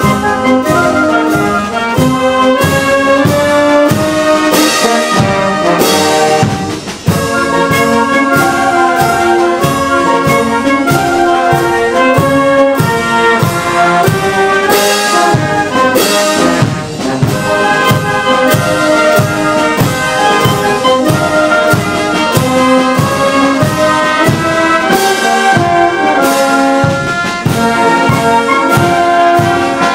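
Alpini military wind band of clarinets, saxophones, trumpets and trombones playing a tune with a steady beat, with a brief break about seven seconds in.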